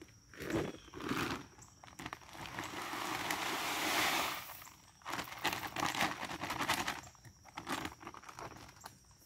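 Shelled corn poured from a feed bag into a metal deer-feeder drum: a steady rushing hiss that builds for about two and a half seconds and then stops. After it the empty feed bag crinkles and rustles, with a few footsteps in dry leaves at the start.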